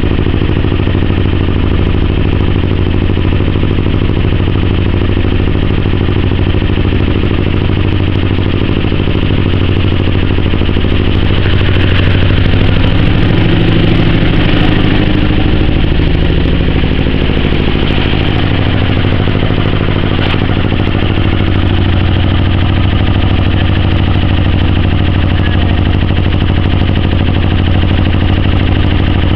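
Canal narrowboat's inboard engine running steadily while the boat cruises, an even low engine note throughout.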